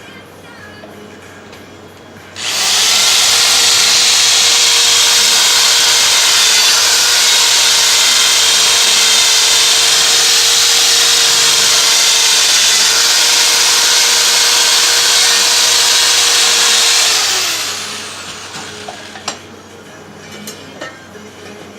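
Handheld power tool sanding the bead seat of a go-kart wheel rim. It starts about two seconds in, runs steadily at one speed for about fifteen seconds, then winds down with its pitch falling.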